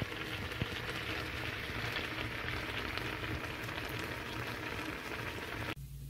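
Spicy fish roe and milt stew bubbling at a boil in a foil tray, a steady crackly hiss. It cuts off sharply near the end, leaving a low steady hum.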